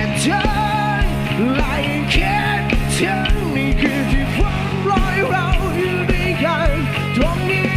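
Rock band playing with a sung lead vocal: drums and cymbals hitting in a regular beat under a steady bass line.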